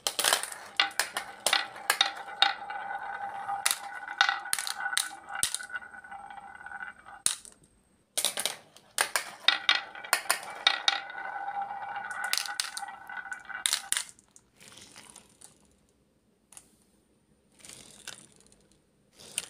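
Glass marbles clicking and clacking as they drop through a plastic spiral marble toy, then rolling along a carved wooden groove with a steady, ringing rolling sound. There are two runs: the first stops about seven seconds in, the second starts about a second later and stops around fourteen seconds, leaving only a few faint sounds.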